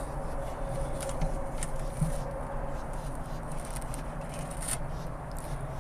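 Steady low background hum with a few faint, scattered clicks and taps, as of a speaker cabinet and camera being handled.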